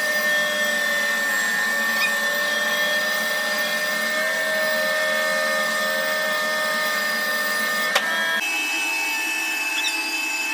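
Bandsaw running steadily with a whine, resawing white cedar. A single click about eight seconds in, and the tone of the machine shifts just after.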